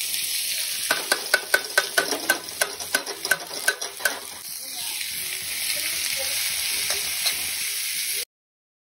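Sliced onions sizzling as they hit hot oil in an aluminium kadai, with a quick run of metal clinks from the steel spoon against the pan between about one and four seconds in. The sound cuts off abruptly near the end.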